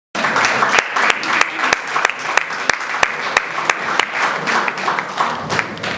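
Audience applauding, dense clapping that eases off near the end.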